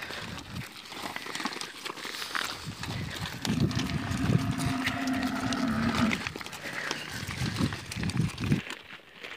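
A cow lowing once, a long, low, steady moo of about two and a half seconds in the middle, over the shuffle of hooves and footsteps on a dirt track as the herd is driven along.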